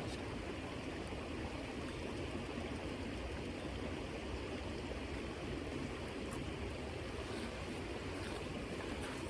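Creek water flowing steadily, a continuous rushing sound.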